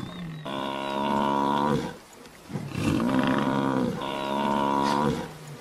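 African (Cape) buffalo bellowing in distress while a pride of lions holds it down: three long, drawn-out bellows, each steady in pitch.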